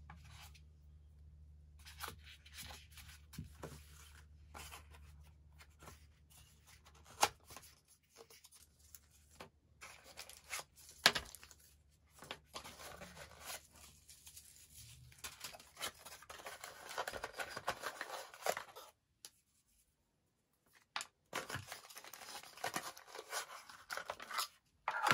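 Cardboard box and plastic packaging being handled and opened: irregular bursts of rustling and tearing, with two sharp clicks, and longer stretches of rustling in the second half.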